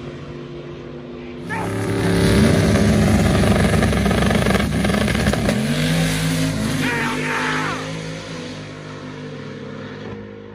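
Ford Mustang drag car's engine at full throttle, very loud for a few seconds from about one and a half seconds in, with a rising rev as it pulls away, then fading as it goes down the strip.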